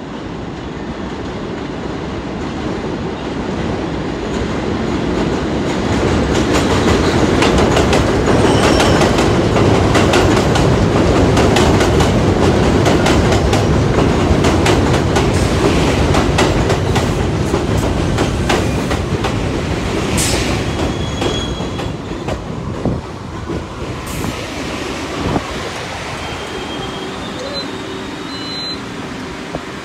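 A New York City Subway 1 train of R62A cars pulling into an elevated station. The rumble builds over the first few seconds, the wheels clatter rapidly over rail joints and squeal briefly as it brakes, and it quietens as the train comes to a stop.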